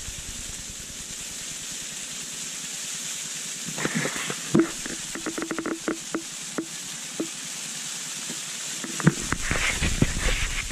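Gas camp stove burner hissing steadily under a pot of coffee water, with a run of light clicks and taps from about four to seven seconds in and a low rumble of handling noise near the end.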